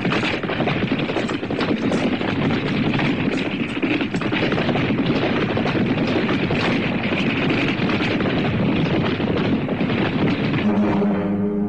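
Horses galloping: a dense, loud clatter of many hoofbeats. A sustained musical chord comes in near the end.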